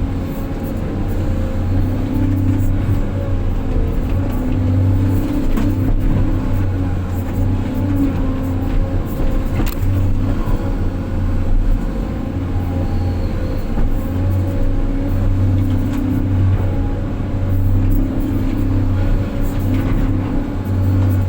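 Large diesel dump truck engine running under heavy load, a steady low drone that swells and eases every few seconds.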